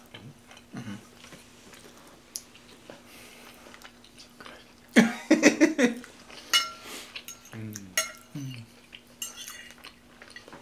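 Metal cutlery clinking and scraping against ceramic dinner plates, with a few sharp clinks that ring briefly in the second half.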